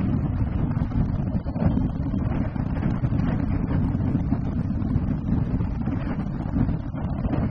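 Wind buffeting the microphone as the camera moves through the air in flight: a steady, low rumbling rush with no breaks.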